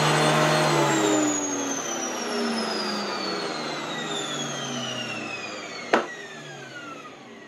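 Bosch AXT 2200 Rapid electric garden shredder's motor and blade at the top of a failed start: the whine peaks high about half a second in, then the motor cuts out and winds down, its pitch falling steadily over several seconds. The run-up into overspeed before the cut-out is the fault, which the owner traces to the motor's speed regulation. A sharp click about six seconds in.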